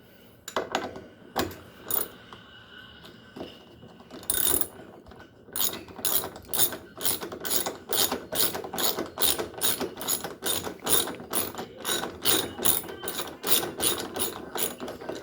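Hand ratchet wrench clicking as it turns a bolt. A few scattered clicks come first, then a steady run of about three clicks a second from about halfway in.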